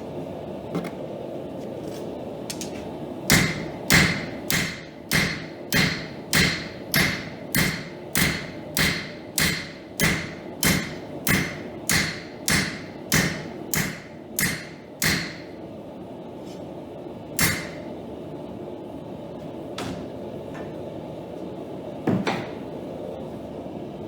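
Hammer blows on hot steel at an anvil, a run of about twenty ringing strikes at roughly two a second, then two single blows later, over the steady rushing of the running homemade forge.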